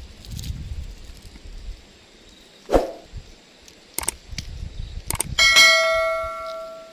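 A few knocks and clicks, then a hard metallic clang that rings on with a bell-like tone and fades out over about a second and a half.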